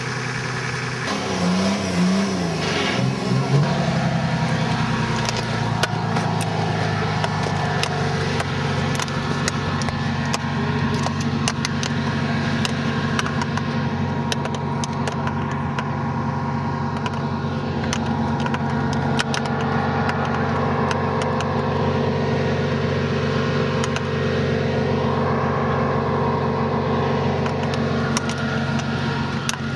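An off-road trial vehicle's engine running at a steady speed, revved up and down briefly about a second in, with scattered short clicks over it.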